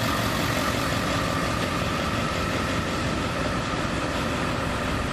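Cummins ISL9 inline-six diesel of a NABI 416.15 transit bus running with a steady drone, heard from inside the rear of the bus near the engine.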